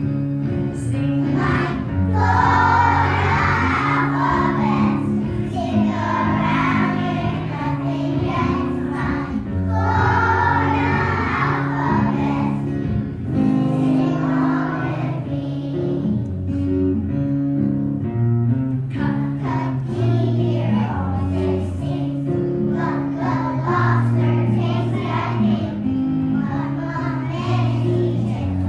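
A group of young children singing a song together over instrumental accompaniment, the voices coming in phrases over steady held notes.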